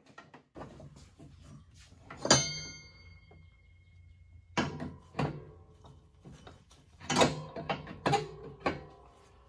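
Metal clanks and knocks from hands and tools working on a riding mower's cutting deck during a belt change. One sharp strike about two seconds in rings on as a clear metallic tone for about two seconds, and a run of louder knocks follows near the end.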